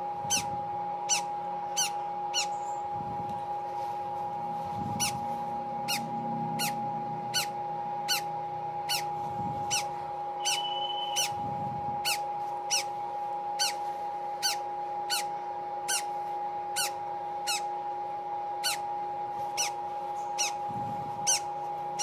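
Newly hatched African grey parrot chick peeping during a pipette hydration feeding: short high cheeps repeated a little more than once a second, over a steady hum.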